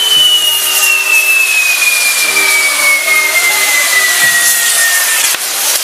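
Castillo fireworks tower burning: a loud, steady hissing of pyrotechnics with one whistle that falls slowly and evenly in pitch for about five seconds, then cuts off near the end.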